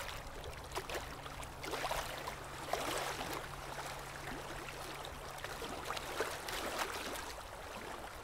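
Sea waves washing and fizzing on a shore, rising and falling in surges, over a faint low held note that fades out near the end.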